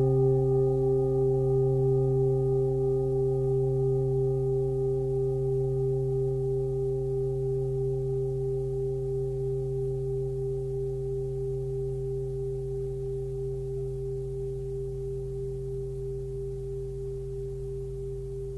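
A 25.3 cm forged Tibetan singing bowl ('Ganesha') with a fundamental of about 134 Hz (note C), ringing on and slowly fading. Its low hum is layered with several higher overtones and carries a gentle wavering pulse.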